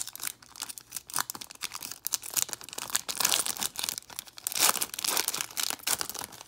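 Wrapper of a basketball trading-card pack being torn open and crinkled by hand, in irregular crackling rustles that come loudest about three and five seconds in and thin out near the end.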